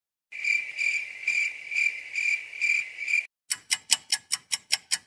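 Crickets chirping, a steady high trill pulsing about twice a second for about three seconds, as in the stock 'awkward silence' sound effect. It breaks off, and about three and a half seconds in a fast run of sharp ticks begins, about five a second.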